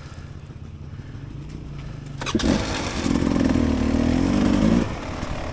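Dirt bike engine idling, then about two seconds in the throttle opens and the engine revs up and pulls steadily for a couple of seconds before easing back off near the end.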